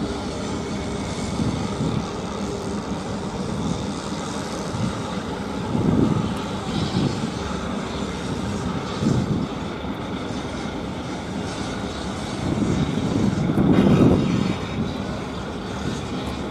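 Low, steady rumble of a large RORO cargo ship's engines and wash as it passes close by, swelling louder about six seconds in and again near the end.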